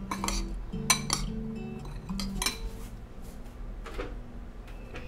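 A spoon clinking and scraping against a bowl while chickpeas coated in tahini and spices are stirred, with several sharp clinks spread through.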